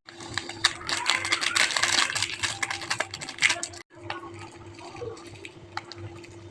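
Kitchen cooking noises while homemade spicy noodles (mi nyemek) are prepared: dense, irregular crackling and clicking for about the first four seconds, then a sudden cut to sparser clicks, over a steady low hum.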